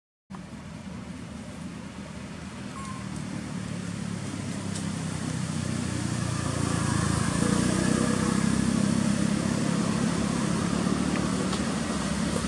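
A motor vehicle's engine running close by, growing steadily louder over the first seven seconds and then holding at that level.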